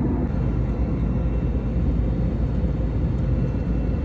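Steady low rumble of a moving vehicle heard from inside its cabin, with a faint steady hum over it.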